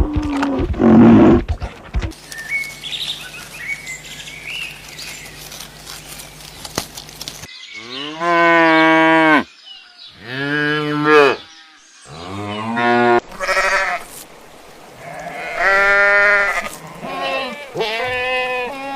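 Cattle mooing: a series of about five long moos that rise and fall in pitch, coming in the second half after a quieter stretch with faint chirps.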